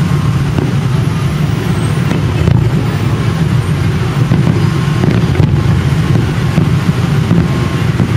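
Dense, steady low rumble of a fireworks display, with a couple of sharper bangs standing out a few seconds apart.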